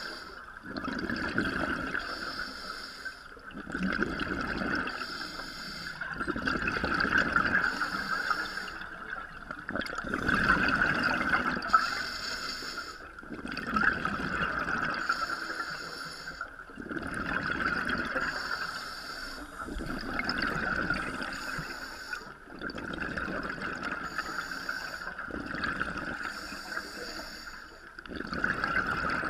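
Scuba regulator breathing heard underwater through a GoPro housing: each breath is a hiss and then a burst of bubbling exhalation, and the cycle repeats about every three seconds.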